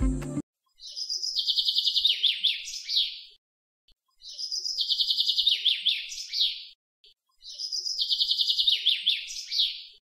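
A small songbird's high-pitched twittering phrase, a rapid trill that ends in a few quick downward chirps, heard three times over, each phrase identical: a looped bird-song recording.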